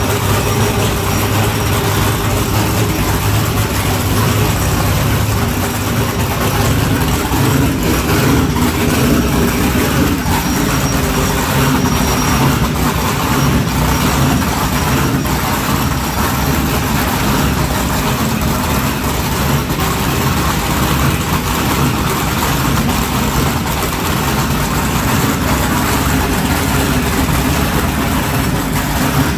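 High-performance offshore race boat's engines idling, a steady low rumble.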